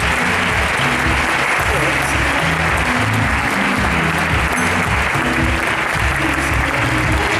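Audience applauding steadily over music with a bass line playing through the hall's sound system.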